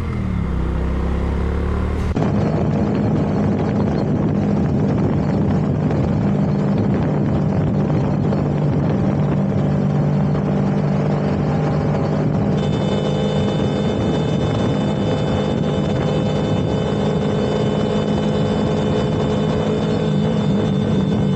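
Motorcycle engine running at a steady cruising speed, with road and wind noise on an onboard camera. About two seconds in the sound cuts to another ride, where the engine holds a steady pitch and a high steady whine joins about halfway through.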